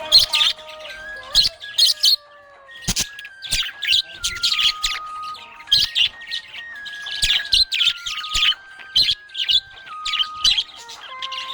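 Budgerigar chirping and warbling in rapid short bursts over a simple background melody of held notes that step up and down in pitch.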